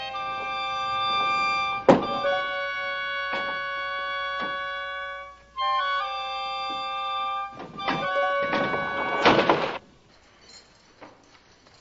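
Film score of held woodwind chords, cut through by sharp wooden knocks from a guillotine being worked on its rope; the loudest knock comes about two seconds in. Near the end a short rushing crash, the blade run down its frame, comes just as the music breaks off.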